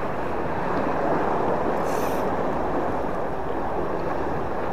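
Steady rushing of sea waves and wind around a rock breakwater, with no distinct events.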